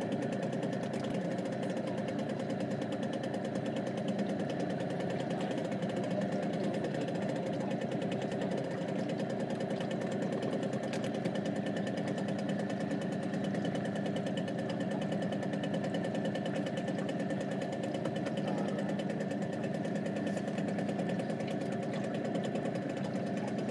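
Boat engine running at a steady pace while under way, an even drone that holds throughout.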